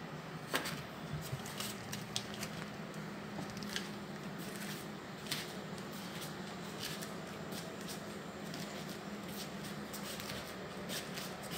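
Wood stove burning in a secondary combustion burn: irregular sharp crackles and ticks over a steady low hum.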